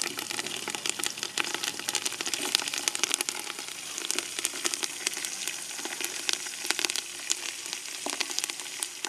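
Tempering in an aluminium pot: dried red chillies, curry leaves and mustard seeds sizzling in hot cold-pressed sesame oil, a steady hiss with many irregular small crackles and pops.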